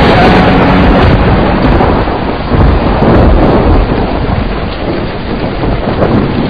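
Heavy rain falling with thunder rumbling, swelling again about two and a half seconds in before easing.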